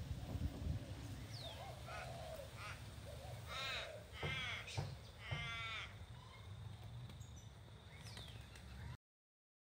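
A crow cawing: several harsh calls, the loudest three coming about halfway through, over a steady low rumble. A few thin, high bird chirps come in as well.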